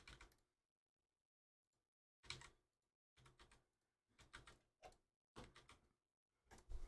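Faint clicking and tapping at a desk, in about six short bursts with near silence between them.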